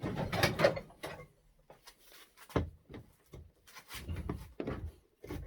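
Steel clamp of a 500 kg fishing magnet being forced open with a screwdriver and spanner: metal scraping and clunking, with a sharp knock a little over halfway through and a short one near the end.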